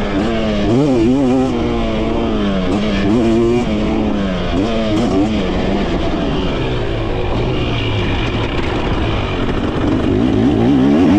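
2023 KTM 300 SX's single-cylinder two-stroke engine being ridden, its revs rising and falling in quick surges as the throttle is worked. The engine settles to a lower, steadier note midway, then picks up again near the end.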